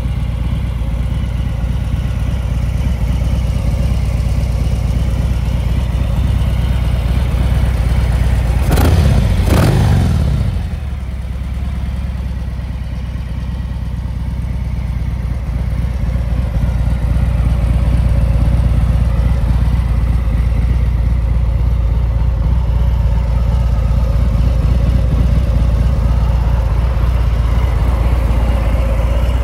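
Harley-Davidson FXDR 114's 1868 cc Milwaukee-Eight V-twin idling steadily, with two quick throttle blips about nine seconds in.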